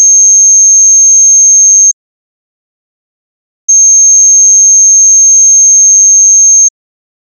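Pure sine-wave test tone, high-pitched and steady, played for frequency identification by ear. It cuts off about two seconds in, and after a gap of nearly two seconds the same tone sounds again for about three seconds.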